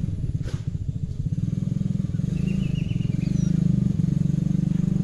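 An engine running steadily with a fast, even pulse, like a motorcycle idling, and a few short bird chirps over it near the middle.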